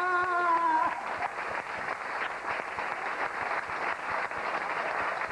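Studio audience applauding steadily. A single held note sounds over the clapping until about a second in.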